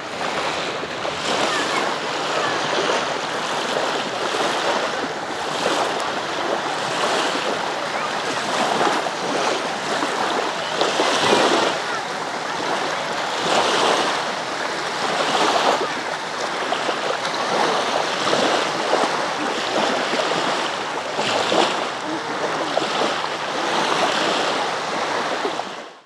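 Small sea waves lapping and breaking on a shallow sandy shore, the wash swelling and easing every couple of seconds.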